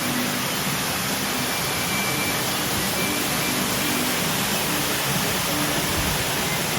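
Steady rushing water with faint background music notes underneath.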